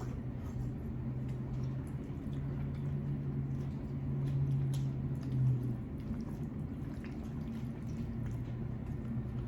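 Wet chewing and mouth sounds of a person eating a seafood boil, with small smacking clicks, over a low steady hum.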